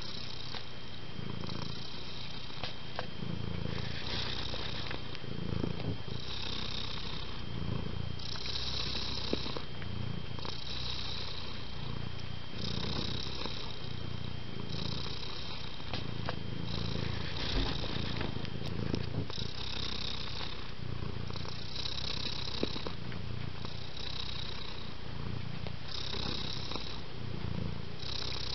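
Domestic cat purring steadily, swelling in even pulses about every two seconds with its breathing.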